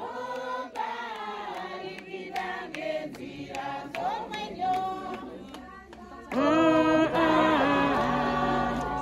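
A group of women singing together in chorus, several voices on held, sliding notes; the singing gets clearly louder and fuller about six seconds in.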